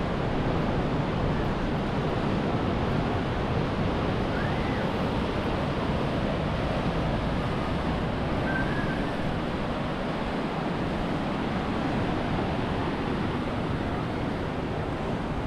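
Steady wash of ocean surf breaking on a sandy beach, with no single wave standing out.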